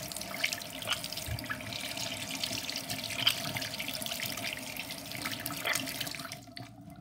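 Bathroom sink tap running, its stream splashing over hands being rinsed of shampoo and into the basin. The water stops near the end.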